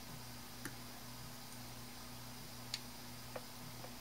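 Faint, sharp ticks, about four of them, the loudest nearly three seconds in, from a soldering iron tip and fingers working on a small circuit board, over a low steady electrical hum.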